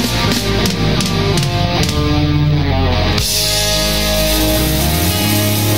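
A rock song playing through an instrumental stretch with electric guitar and no singing. About three seconds in, the sound changes and fills out brightly at the top.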